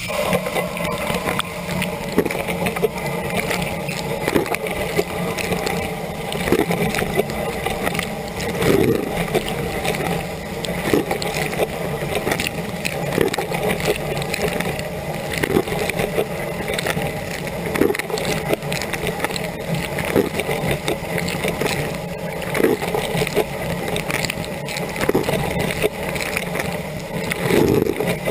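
Dishwasher running a rinse cycle, heard from inside the tub: the wash pump hums steadily under the hiss and splash of water spraying against the racks and walls. A brief swell comes about every two seconds as the rotating spray arm sweeps past.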